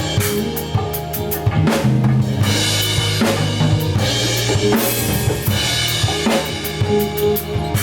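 A band playing live: a drum kit with kick and snare hits and cymbal crashes about two and a half seconds in and again near five seconds, over held low bass notes.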